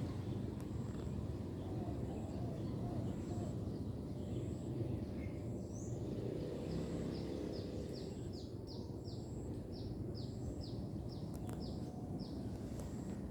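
Steady low background rumble. In the middle of it a bird sings a run of short, high, down-slurred chirps, about three a second, for several seconds.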